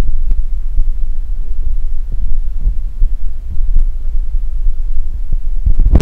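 Loud, low rumbling and uneven thudding of a camera microphone being jostled and rubbed while the camera is moved about. It cuts off suddenly at the very end.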